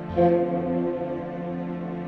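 Background music: slow, sustained chords, with a new chord sounding about a fifth of a second in.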